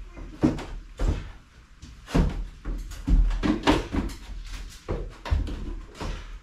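Heavy footsteps and irregular thumps and knocks on wooden basement stairs as two people carry an old furnace cabinet up them.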